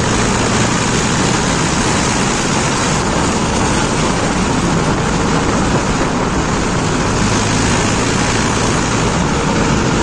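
Mahindra Yuvo 585 DI tractor's diesel engine running steadily while the tractor drives along a road, heard from the driver's seat.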